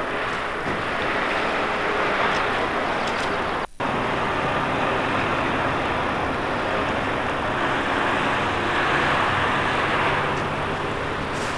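A truck's diesel engine running steadily beneath a constant outdoor noise hiss. The sound cuts out completely for a split second a little before four seconds in.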